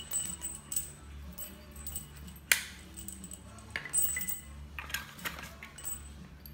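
Loose metal bolts, nuts and washers clinking against one another and the hard floor as they are sorted by hand: irregular light clinks, with one sharper clink about two and a half seconds in. A steady low hum runs underneath.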